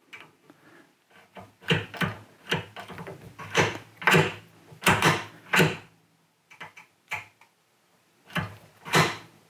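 Hagn falling-block rifle action, all steel, clicking and clacking as it is worked by hand after reassembly, its lever and trigger cycled to test that it functions. A run of over a dozen sharp metallic clicks, with short pauses between groups.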